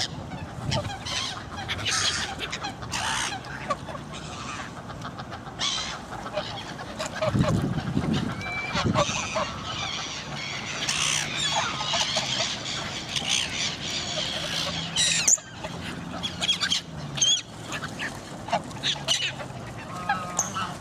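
Geese honking and ducks quacking, many short calls overlapping in a busy chorus.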